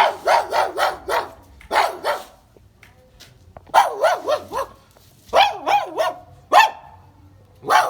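Repeated dog-like barking in about six short bursts of a few barks each: a man barking like a dog after drinking dog medicine.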